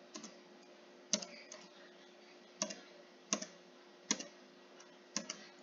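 Computer keyboard keys pressed one at a time, single sharp clicks spaced about half a second to a second apart.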